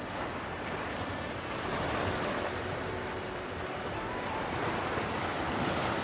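Sea surf washing on a sandy beach, a steady rush of breaking waves that swells twice, with wind on the microphone.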